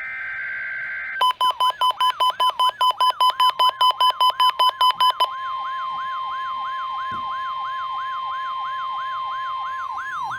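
NOAA Weather Radio weekly test alert: a buzzy digital data burst ends about a second in. Then the 1050 Hz warning alarm tone sounds, chopped into rapid pulses at first and steady from about five seconds in, with a siren-like sweeping tone repeating about four times a second over it.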